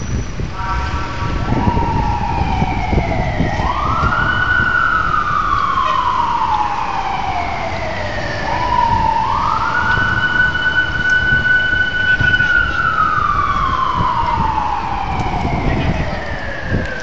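Emergency vehicle siren wailing: it rises, holds high, then falls slowly over several seconds, twice in a row. A brief steady horn-like tone comes just before the first rise, over road and wind noise.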